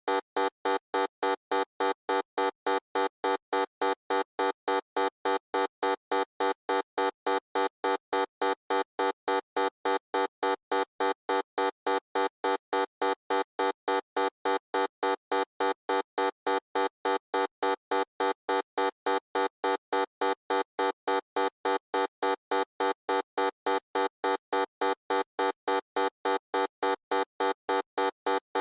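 Loud electronic buzzer tone pulsing on and off about three times a second, each pulse the same harsh, steady pitch.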